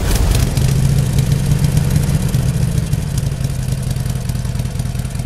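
A motorcycle engine running steadily, loud and low-pitched, easing off a little toward the end.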